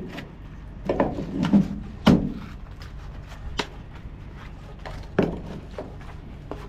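A series of separate knocks and thumps, about six of them spread over several seconds and loudest about two seconds in, over a low steady hum.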